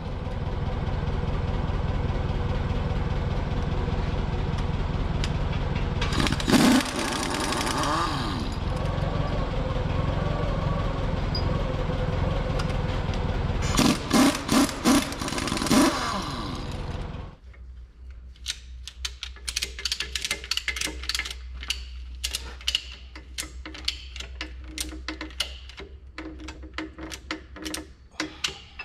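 Pneumatic impact wrench hammering on the bolts of a John Deere 4650 rear axle housing in short bursts, about six seconds in and several more near the middle, over a steady motor drone. The drone cuts off abruptly a little past halfway, leaving light clinks and rattles of hand tools on metal.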